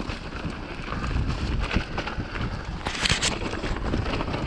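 Mountain bike descending a rocky dirt trail: tyres rolling and clattering over loose stones, with a steady low rumble of wind on the microphone. A brief louder hiss about three seconds in.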